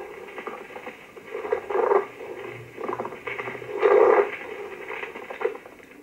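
Stethoscope recording of a pleural friction rub after a cough: a rough rubbing noise that swells in bursts through breathing in and out, loudest about four seconds in and fading near the end. It is the sign of inflamed pleural layers, roughened by fibrin deposits or adhesions, rubbing against each other.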